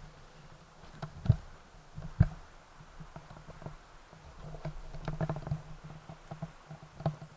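Newly lit kindling fire crackling and popping in the firebox of a BioLite Basecamp wood stove, with two sharp loud pops early on and a busier run of crackles after about five seconds, over a steady low hum.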